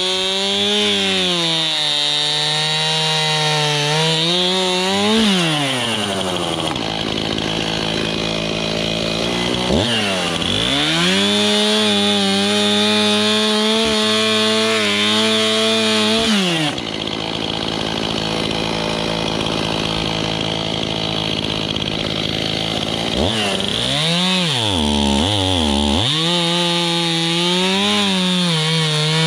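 Stihl Farm Boss two-stroke chainsaw cutting firewood. The engine pitch sags and holds steady while the chain is in the wood, climbs between cuts, and dips and rises a few times near the end before settling into another cut.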